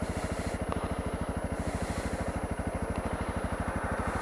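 Honda CRF250L's single-cylinder engine running steadily at low revs, a quiet, even chugging of firing pulses.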